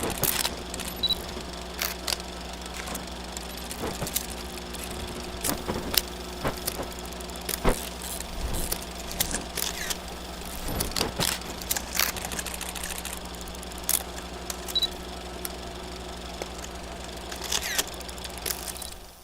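8mm film projector sound effect: a steady running motor hum with irregular crackles, clicks and pops scattered throughout.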